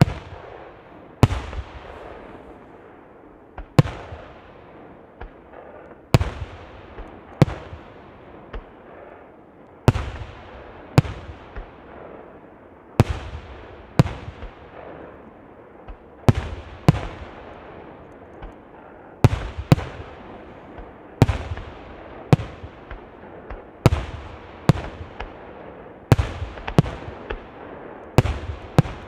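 Aerial firework shells bursting in a steady series, a sharp bang about every second or so, each followed by a long rolling echo that fades away.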